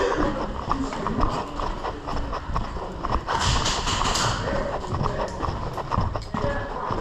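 Quick footsteps and clattering knocks on a hard floor, with a brief hissing burst about three seconds in.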